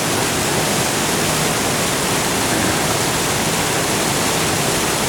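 Steady rush of a brook's water pouring over small falls into a churning pool.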